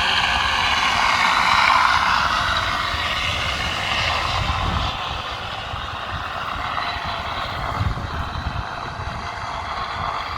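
Sound effect module in an RC P-47 model playing a simulated warplane engine through its speaker, following the throttle. It runs steadily, louder in the first half and dropping back about five seconds in.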